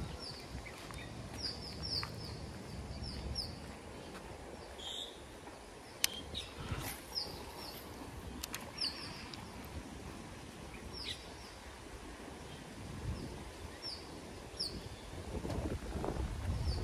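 Small birds chirping: short, high, downward-sweeping chirps every few seconds over faint outdoor background noise. A single sharp click about six seconds in, and a low rumble rising near the end.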